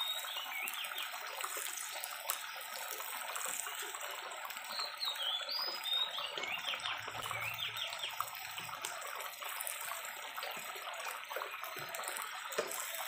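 Fish curry simmering and bubbling in a steel pan over a gas burner. A bird chirps a short phrase twice.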